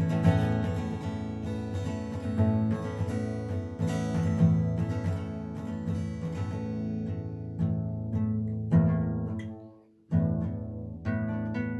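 Acoustic guitar strummed in a steady rhythm. Just before ten seconds in the chord dies away to near silence, then the strumming picks up again.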